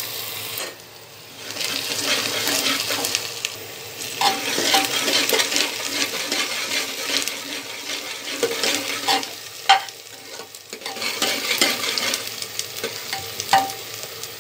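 Chopped onions sizzling as they fry and brown in oil in an aluminium pot, stirred with a steel spoon. The spoon clinks against the pot several times, each clink ringing briefly.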